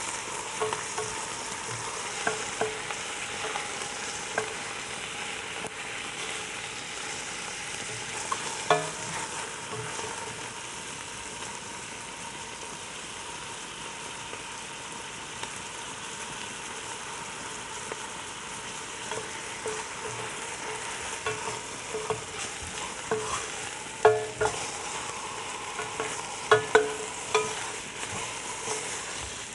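Chicken halves and chopped onion sizzling in hot oil in a stainless steel pot as they are seared to a light golden colour. A wooden spoon scrapes and knocks against the pot while turning the pieces, with a few louder knocks near the end.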